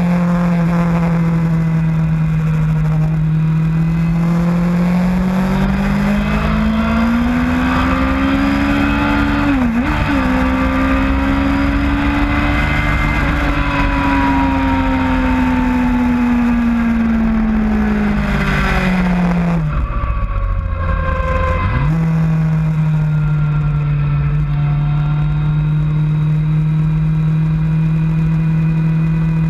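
Motorcycle engine at track speed: the note climbs steadily under acceleration, dips briefly about ten seconds in as if for a gear change, then falls away as the bike slows. Around twenty seconds in the revs drop sharply and snap back up, like a downshift, and the engine then holds a steady note, with wind rushing past throughout.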